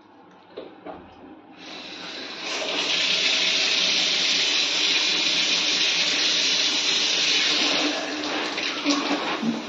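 Water spraying from a shower panel: it starts about a second and a half in, builds to a steady rushing spray within a second, and eases slightly near the end.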